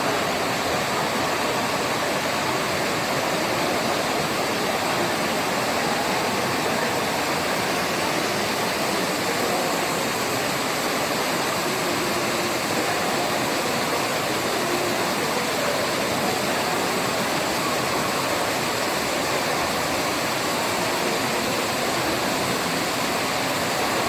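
Indoor fountain's water jets splashing back down into its pool: a steady rush of falling water.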